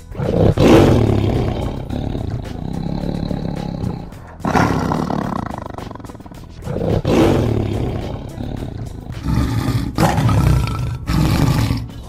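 Tiger roaring: a series of loud roars, the first few several seconds apart and then three in quick succession near the end.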